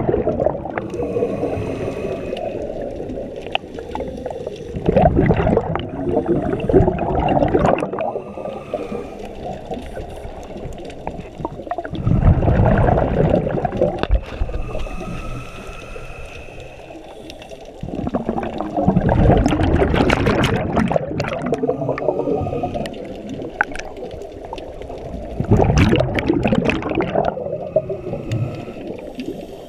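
A scuba diver breathing through a regulator, heard underwater: a loud bubbling rumble of exhaled air about every six to seven seconds, with quieter hissing inhalations between.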